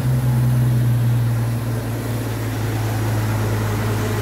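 Old step-van ice cream truck's engine idling steadily, just after being started.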